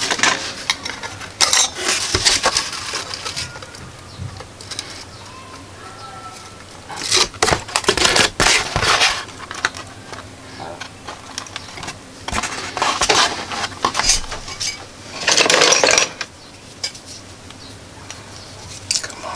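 Workbench handling noises: several short bursts of scraping, rustling cardboard and light metallic clinks as cardboard pieces and a pair of pliers are handled.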